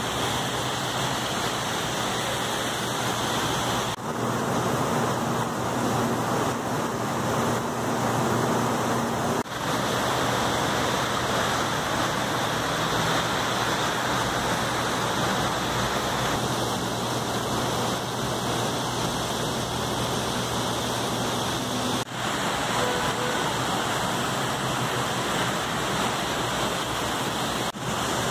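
Heavy rain pouring down in a steady, dense hiss, briefly breaking off a few times.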